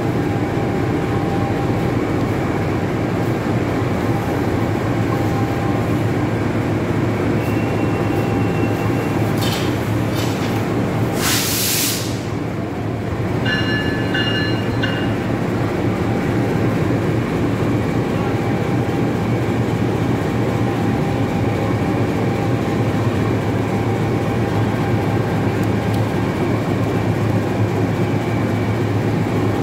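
KAI CC 206 (GE C20EMP) diesel-electric locomotive's engine running steadily as the locomotive creeps along the platform toward the carriages it is coupling to. A short loud hiss comes about eleven seconds in, and a brief high tone follows a couple of seconds later.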